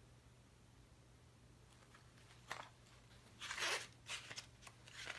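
Paper pages of a small softcover booklet being flipped: a quiet start, then several short paper rustles, the loudest a little past the middle.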